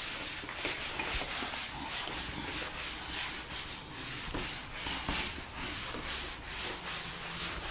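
Writing by hand: a quick run of short, scratchy strokes.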